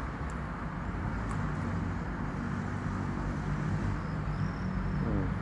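Steady low rumble of vehicle traffic, with a faint high squeak about four and a half seconds in.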